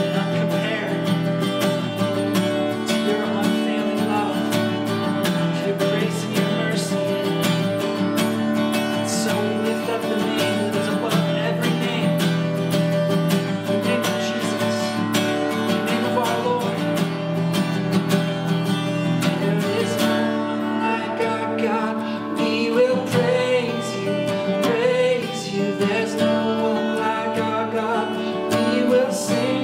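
Acoustic guitar strummed steadily, accompanying a man singing a slow worship song; the voice stands out more in the second half.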